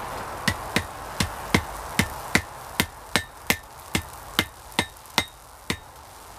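Hand hammer striking white-hot, fluxed steel cable on an anvil, about fourteen quick blows at roughly three a second, each with a short ring: forge-welding the cable's strands together.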